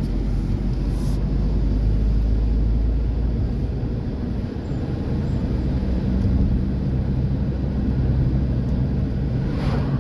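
Car cabin noise while driving: a steady low rumble of engine and tyres on the road. A short hiss comes in near the end.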